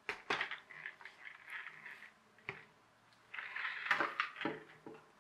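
Hard plastic knocks, clicks and scraping as a toy RC car's chassis is handled, lifted and turned over on a tabletop.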